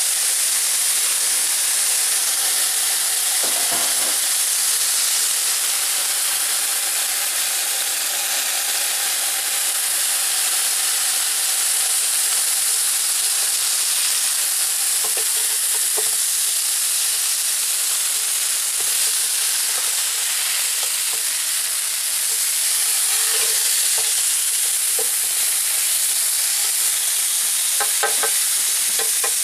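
Swordfish steaks sizzling steadily on a hot non-stick plancha grill plate, a fine even hiss of frying as the already-cooked fish browns.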